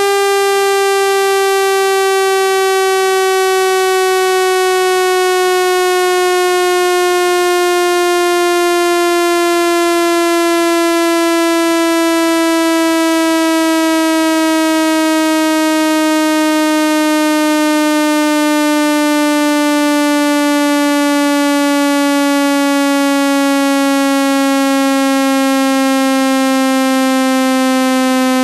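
Loud synthesized buzzing tone, rich in overtones, sliding slowly and steadily down in pitch: a water-eject sweep tone played through a phone speaker to shake trapped water out of the grille.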